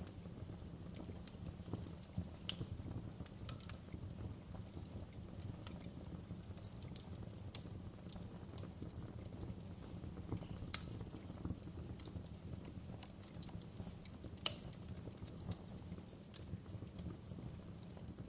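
Fire crackling, with irregular sharp pops and snaps over a steady low rumble of the flames. The two loudest pops come a little past halfway and about three-quarters of the way through.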